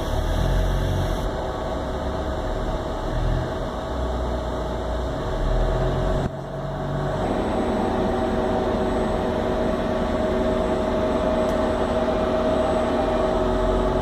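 Steady machine hum and noise from robotic TIG welding equipment. About six seconds in the sound shifts briefly, and after that a steady mid-pitched tone stands out.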